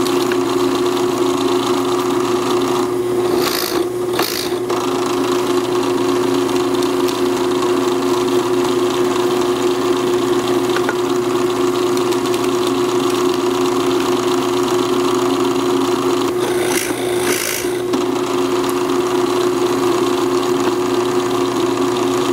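Benchtop drill press motor running with a steady hum. The twist bit cuts briefly into softwood twice, first a few seconds in and again around seventeen seconds, each cut adding a short rasping noise.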